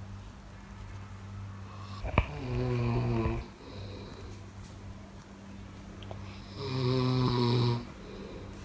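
Snoring in sleep: two long, pitched snores about four and a half seconds apart, with a sharp click during the first and a steady low hum underneath.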